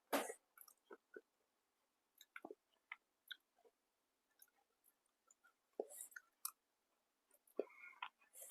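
A person chewing food close to the microphone: faint, irregular wet mouth clicks and smacks, the loudest right at the start.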